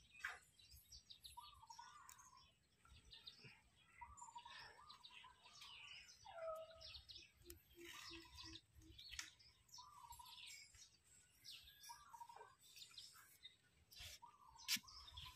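Quiet outdoor background with faint birds chirping on and off, and a short run of five low notes about halfway through.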